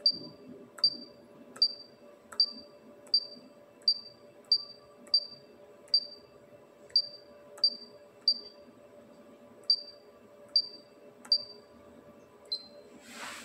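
Touchscreen key beep of a Pioneer AVH-X8580BT car head unit: a short, high beep with a click at each tap of the skip key, repeated about every 0.7 s with a few longer pauses. A brief swish comes near the end.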